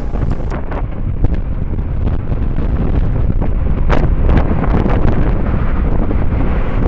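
Strong wind buffeting the microphone, a loud, continuous low rumble with scattered crackles from the gusts.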